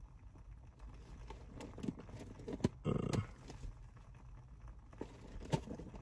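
A folding knife blade scraping and slicing at packing tape on a cardboard box, with scattered small clicks and scrapes, a louder rustle about three seconds in and a sharp click near the end.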